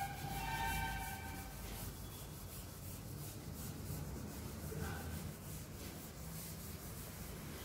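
Chalkboard duster rubbing over a chalkboard in repeated strokes, wiping off chalk writing. A brief held tone sounds in the first second or two.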